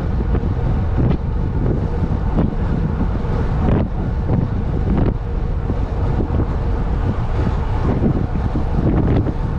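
Heavy wind buffeting the microphone of a road cyclist riding at about 39 km/h: a loud, steady rumble.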